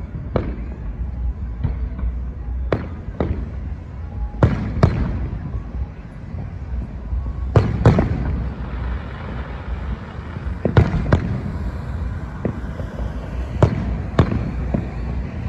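Fireworks display: aerial shells bursting in about a dozen sharp bangs at irregular intervals, several in quick pairs, over a continuous low rumble.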